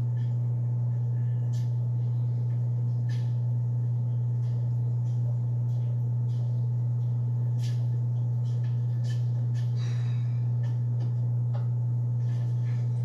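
Steady low hum of running aquarium equipment, with a few faint scattered ticks.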